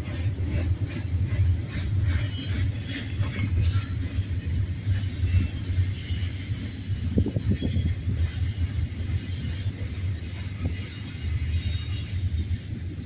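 Double-stack intermodal train's well cars rolling past on a curve: a low rumble with regular clicking of wheels, and thin high-pitched wheel squeal over it in the first half. The squeal and clicking fade as the last cars pass.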